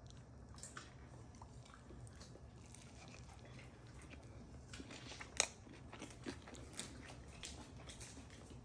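Faint chewing and biting of a sandwich, with scattered small mouth clicks and one sharper click about five and a half seconds in.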